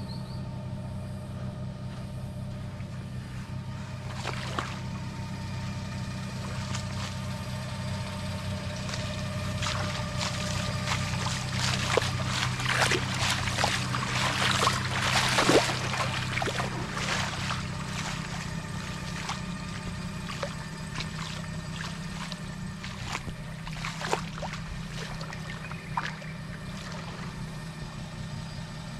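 Four-wheel-drive vehicle's engine idling steadily, with footsteps splashing through shallow creek water, the splashing loudest around the middle.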